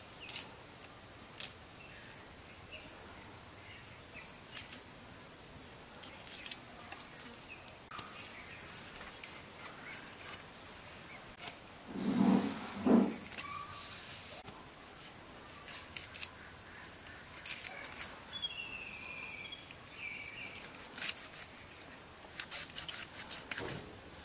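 Fish being scaled and cut against a boti blade, heard as scattered light scrapes and clicks over a steady high insect drone. There are two brief louder sounds about halfway through, and a bird chirps a few times later on.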